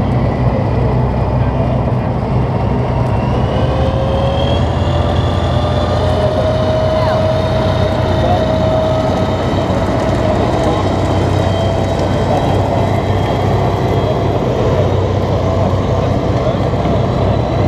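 FV432 armoured personnel carrier's engine running loud and steady, with a whine over it that rises a little in pitch about four seconds in and then holds.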